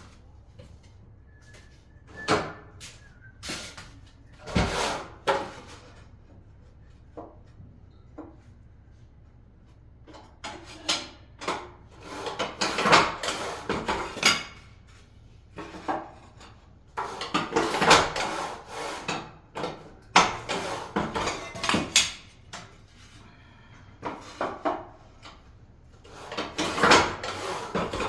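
Irregular knocks, clatter and scraping of hand tools and materials during tiling work, with several longer runs of scraping and rattling.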